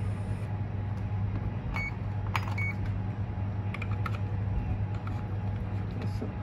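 A steady low hum, with a few light clicks and two or three short high beeps about two to three seconds in from a handheld VALUE VMC-1 clamp multimeter as its buttons are pressed.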